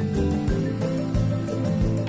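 Background music with a steady beat: plucked and sustained instrument notes over a low kick drum about twice a second.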